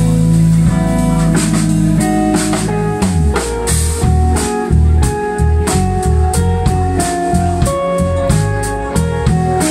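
Live instrumental band playing: semi-hollow electric guitar, bass guitar, keyboard and drum kit. A long low note is held for about the first three seconds, then the low end moves in short rhythmic notes under steady drum hits.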